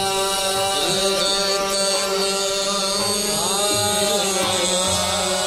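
Qawwali music in a slow opening passage: a steady harmonium drone under a sustained sung melody that slides up into a higher held note about three seconds in.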